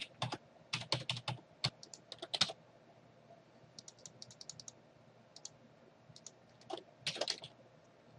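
Computer keyboard typing in quick bursts of keystrokes with short pauses between them, as text is entered into form fields.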